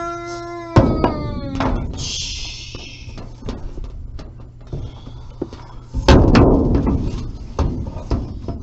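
Deep booming hits: a loud one about a second in and another about six seconds in, with a short hiss between them.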